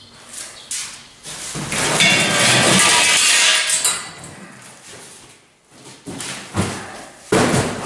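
Loose metal stand parts for a Weber kettle grill clattering and clinking onto a concrete floor as a cardboard box is tipped out, a dense clatter lasting a couple of seconds. Then the emptied box scrapes as it is handled, with two sharp knocks near the end.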